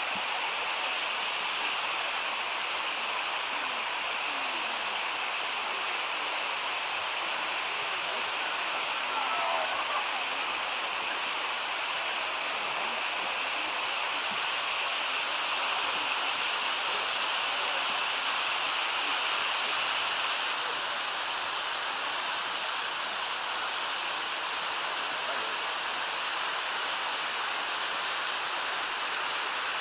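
Steady rush of water falling down a mountain creek's cascade of waterfalls, an even, unbroken noise.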